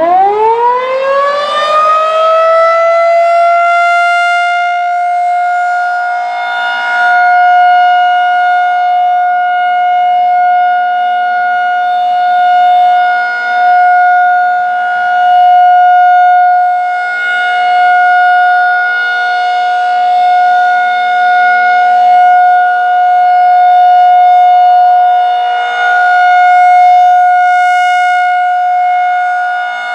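Federal Signal 2001-SRN rotating electromechanical warning siren winding up from a low growl to its full 720 Hz tone within the first few seconds. It then holds a steady alert tone, swelling and fading as the siren head rotates, sounding the alert signal for a scheduled test.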